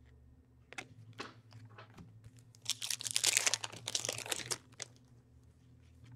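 Hockey card pack wrapper being torn open and crinkled by hand: a few short rustles, then a louder continuous rustle about three seconds in that lasts roughly two seconds.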